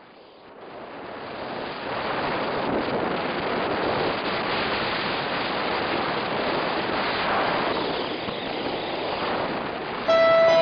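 A steady rushing noise, with no pitch to it, fades in over the first two seconds and swells gently. Near the end, a plucked guitar note rings out as music begins.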